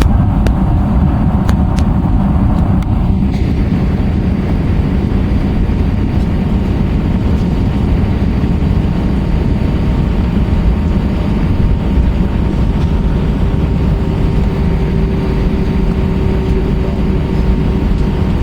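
Airbus A320-232 heard from inside the cabin: a loud, steady roar of its IAE V2500 jet engines and airflow, with a faint steady whine, joined by a second lower one about two-thirds of the way through.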